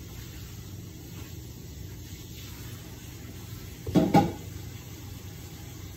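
A steady low kitchen hum, with one short, louder knock or clatter about four seconds in.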